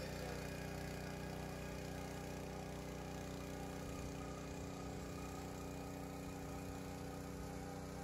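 Small outboard motor running at a steady speed, its pitch unchanging.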